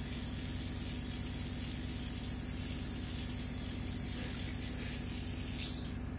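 Steady background hiss with a low hum underneath, and one short sharp click near the end.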